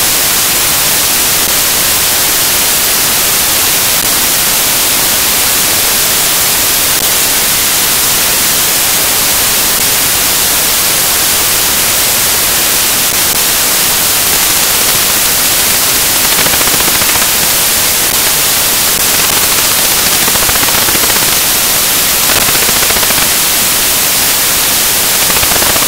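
Loud, steady static hiss, brightest in the highs, with no music or voices in it.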